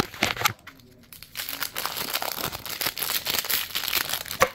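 Clear plastic wrapping crinkling and crackling as it is handled and pulled off a small controller battery pack. There are a few sharp clicks at first, then dense crinkling from about a second and a half in.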